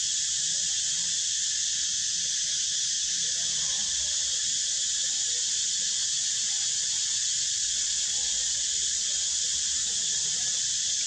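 Steady, high-pitched drone of an insect chorus, unbroken and unchanging in level.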